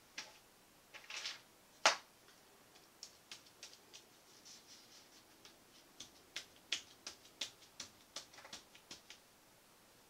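Irregular light clicks and taps, the loudest about two seconds in and a denser run in the second half, from gloved hands handling and tilting a canvas coated in wet black acrylic paint.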